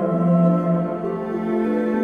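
Calm instrumental background music of long held notes that change pitch every second or so.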